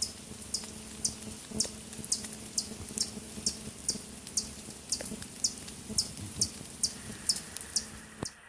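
Short, high chirps from a small animal, evenly repeated about twice a second, over a low steady hum.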